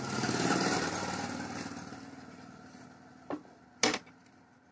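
A small engine running, loud at once and fading away over about three seconds. Two sharp clicks follow near the end, the second one loud.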